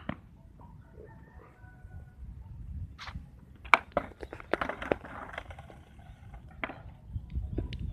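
Skateboard deck clacking and knocking on concrete: a few sharp clacks, the loudest a little before four seconds in, with a cluster of quicker knocks around five seconds and a couple more near the end.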